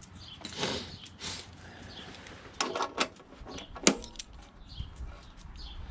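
Scattered clicks and knocks of hand tools and metal parts being handled while a lawnmower is taken apart, the sharpest click about four seconds in, with wind rumbling on the microphone.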